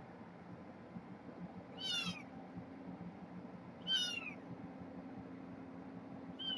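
A four-week-old kitten mewing: two short, high calls that fall in pitch, about two seconds apart, with a third starting right at the end. A faint steady hum runs underneath.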